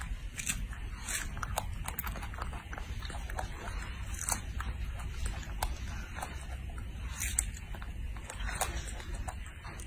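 A baby macaque biting into and chewing strawberries: a quick, irregular run of small mouth clicks, several a second, over a low steady hum.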